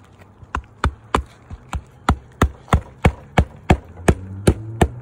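Hand hammer driving roofing nails under a lifted asphalt shingle tab: about fourteen sharp strikes, starting slowly and settling into a steady beat of about three a second that grows louder.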